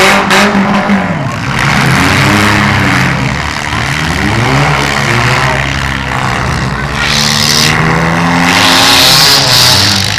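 Demolition derby cars' engines revving, several at once, their pitch climbing and dropping again and again as the cars drive and ram about the arena, with a hiss that grows louder in the second half.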